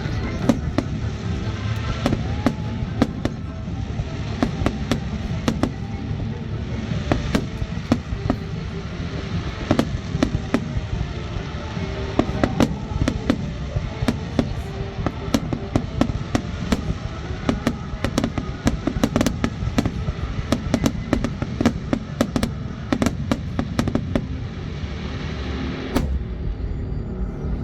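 Aerial fireworks display: rapid, overlapping bangs and crackles of bursting shells, with music underneath. The bursts stop near the end.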